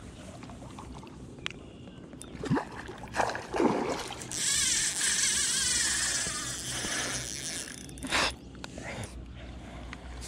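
A hooked fish splashing at the surface in the shallows, with a few short splashes and then a longer stretch of splashing about four seconds in that lasts a few seconds.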